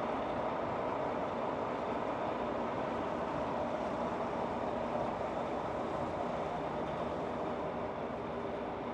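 Steady city traffic noise, a continuous vehicle rumble with no distinct events.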